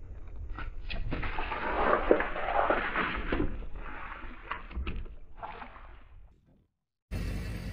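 Cardboard drink cartons crushed under a slowly rolling car tyre: a few crackles as they give way, then a spell of wet splashing and gushing as the juice bursts out onto the asphalt, fading away. It cuts off, and a different noise starts near the end.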